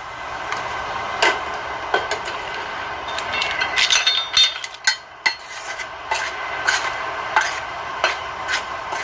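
A spatula scraping and knocking against stainless-steel bowls as marinated chicken pieces are pushed into a bowl of flour, then a hand working the chicken in the flour. The knocks and clinks come irregularly, with a busier run about three to four seconds in, over a steady background hiss.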